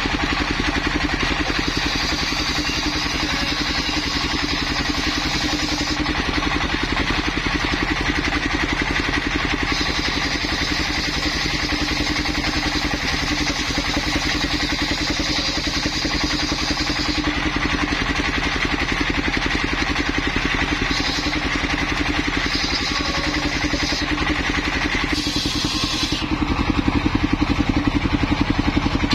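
Engine-powered circular saw running steadily while ripping waru wood into roof battens. A higher whine from the blade cutting comes and goes several times, and it gets a little louder near the end.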